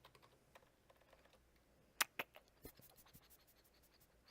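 Typing on a computer keyboard: scattered light keystrokes, with two louder clicks about two seconds in.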